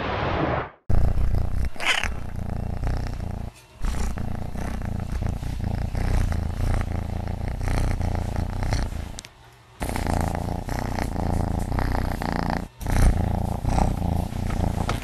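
Domestic cat purring loudly right up against the phone microphone: a continuous low, fast-pulsing rumble that breaks off briefly three times. A short intro sound comes just before it.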